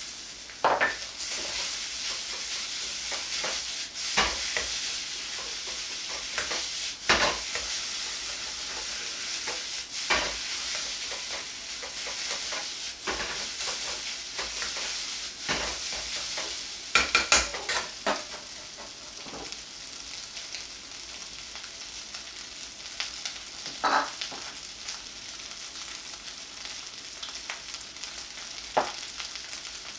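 Rice, egg and sliced pork sizzling steadily in a hot wok, stir-fried with a metal ladle. Every few seconds the ladle clanks and scrapes against the wok, with a quick run of clanks just past the middle.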